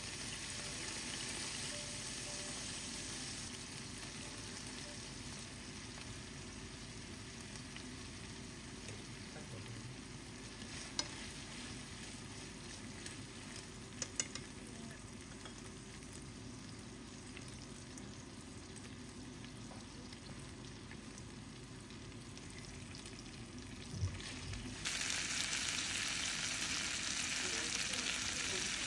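Chicken pieces sizzling in oil in a nonstick frying pan, a steady frying hiss with a few light clicks in the middle. About 24 seconds in there is a knock, and the sizzle turns louder and brighter.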